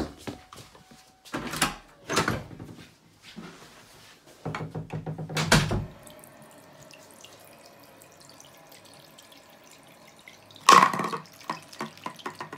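Tap water running into a sink and splashing onto a plastic bottle lying in the basin, with a louder splash near the end. Before it, scattered knocks and rustling of handling and footsteps.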